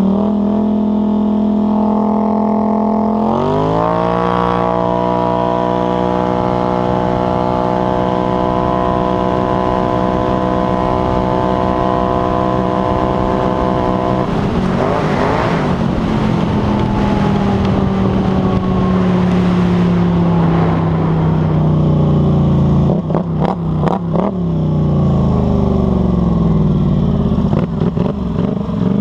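Polaris Scrambler 850 ATV engine running loud through an RJWC slip-on exhaust under throttle. Its pitch rises about three seconds in and holds steady for roughly ten seconds, then falls away gradually, with a few choppy throttle blips near the end.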